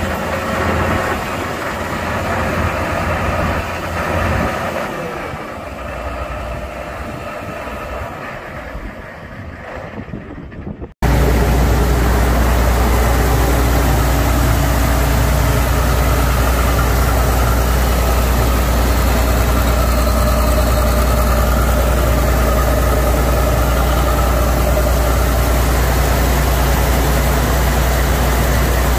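John Deere 9650STS combine's six-cylinder diesel engine idling steadily. About eleven seconds in, the sound jumps abruptly louder, now heard close up in the engine compartment as an even, deep hum.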